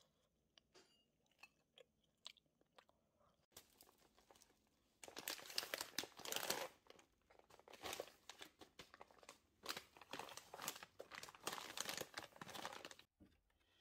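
Plastic packets of frozen fried fish cutlet crinkling and crackling as they are handled, starting about five seconds in. Before that there are only faint scattered clicks.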